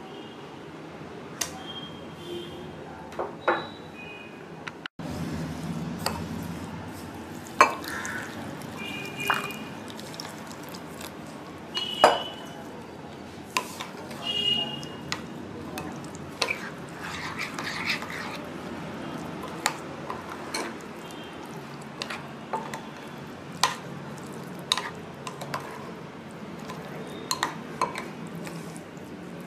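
A steel spoon stirring a thick, wet semolina-and-yogurt batter in a glass bowl, with irregular clinks and scrapes of the spoon against the glass.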